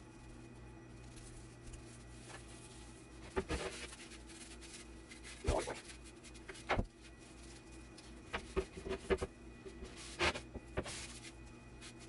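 Wooden drawer-face boards handled on a CNC table's wooden spoilboard: a few scattered knocks and clatters as boards are lifted, shifted and set down, over a steady low hum.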